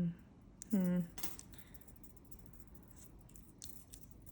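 A woman's short hum falling in pitch about a second in, then faint scattered small clicks and ticks of craft wire being handled.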